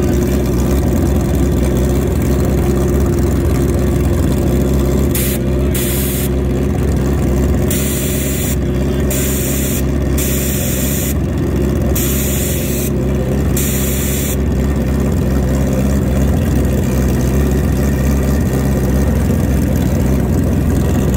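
An engine running steadily at one unchanging speed, like idling, throughout. From about five seconds in to about fourteen seconds in, a high hiss cuts in and out several times over it.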